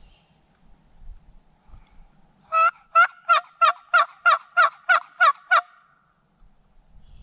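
Wooden turkey box call worked by hand: a series of about ten hen yelps, about three a second, starting about two and a half seconds in, the last note trailing into a short held squeak.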